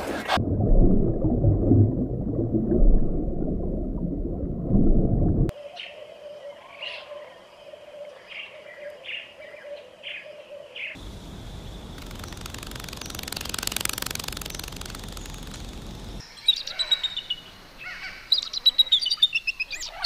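Birds chirping in short calls, alternating with stretches of steady noise: a loud low noise for the first few seconds, then an even rushing noise in the middle, and near the end a quick run of chirps and falling trills.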